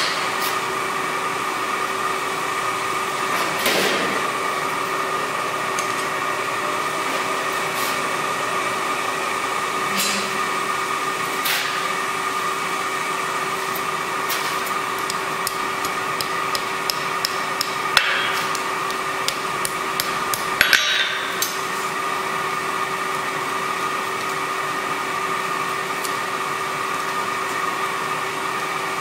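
Steady hum of a workshop fan or blower with a few fixed tones. Over it come scattered sharp metal clinks of tongs and steel on the anvil, including a quick run of small ticks about two-thirds of the way through.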